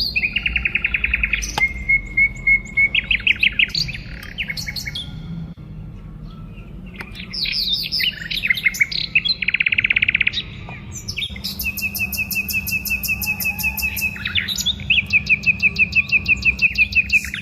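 Birds singing: fast trills and runs of repeated chirps, several voices overlapping, with a faint steady low hum underneath.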